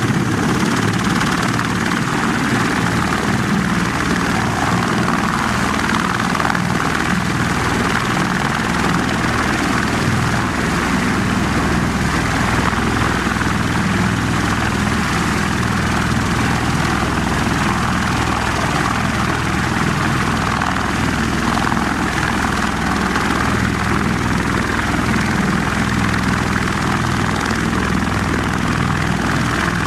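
Bell Boeing MV-22 Osprey tiltrotor running on the ground, its twin turboshaft engines turning both proprotors in the upright helicopter position: a steady rotor and turbine noise that holds level throughout.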